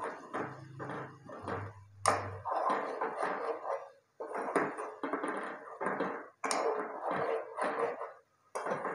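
A spoon scraping and knocking around a pot in repeated strokes, about two a second, as taro pieces are stirred while roasting in their masala, with a few sharper clacks against the pot's side.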